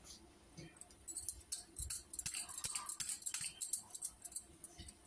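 Bangles on the wrist clinking in quick, irregular light ticks while the hands roll small balls of dough. The clinking starts about a second in and stops near the end.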